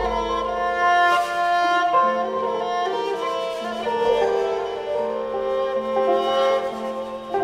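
Cretan lyra bowed, playing a flowing melody over a steady low drone note. A deep low boom dies away in the first second.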